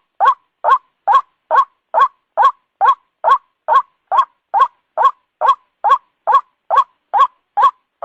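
White-breasted waterhen call repeated in short, identical notes, a little over two a second, evenly spaced with brief silences between them.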